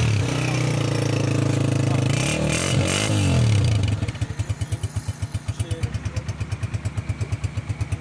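Honda CG125's single-cylinder four-stroke engine running: revved with the throttle so the pitch rises and falls, then settling about four seconds in to an even idle, a steady put-put of exhaust pulses at the muffler.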